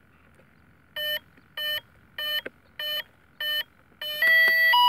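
Electronic speed controller beeping through the plane's brushless motor as the flight battery is connected: five short evenly spaced beeps, then two longer tones near the end, the second higher. These are the ESC's power-up and arming tones.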